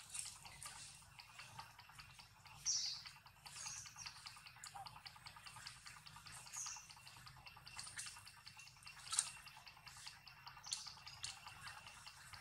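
Faint outdoor ambience: short high chirps every few seconds and scattered small clicks over a steady high hum.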